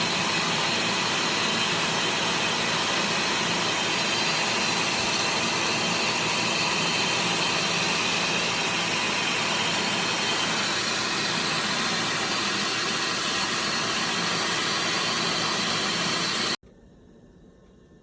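Milling machine running under load, a cutter working its way down through a metal plate: a steady machine drone with a hissing cutting noise. It stops abruptly near the end.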